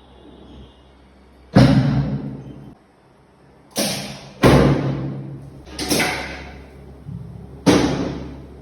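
Five sudden heavy thuds, each dying away over about a second, the loudest about a second and a half in.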